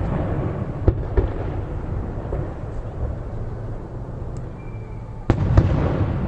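Aerial fireworks shells bursting with deep booms and a rolling rumble, a few sharp cracks early and a loud burst about five seconds in followed by crackling pops.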